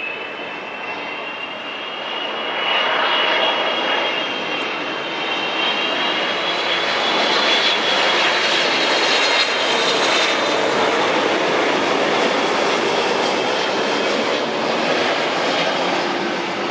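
Airbus A330-200 on final approach passing low overhead: its Pratt & Whitney PW4168A turbofans give a broad jet roar with a high fan whine. The sound swells over the first few seconds, stays loud through the middle and eases a little near the end.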